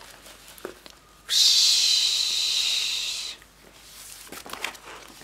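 A person making a long "fshhhh" hiss with the mouth for about two seconds, voicing a comic's sound effect for rain against a window. It is followed by the soft rustle of a paper page being turned.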